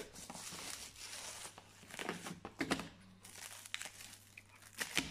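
Clear plastic film wrapped around a cardboard box being pulled off by hand, crinkling and crackling, with sharper crackles a little past halfway and again near the end.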